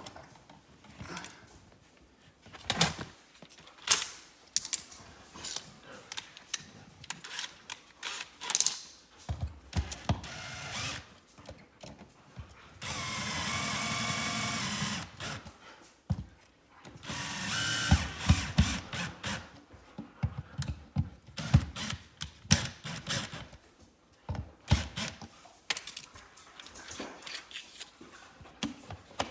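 Electrical receptacle being pushed back into its wall box and fastened: scattered clicks and knocks of the outlet, wires and screws being handled, with a power drill/driver whirring steadily for about two and a half seconds around the middle and running again briefly a couple of seconds later.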